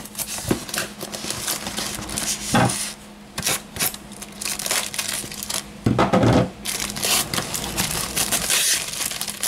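Plastic wrapping and foam packaging rustling and crinkling as they are handled, while a small plastic bag of pry tools is pulled out of the wrapping. A few dull knocks come in, the loudest about six seconds in.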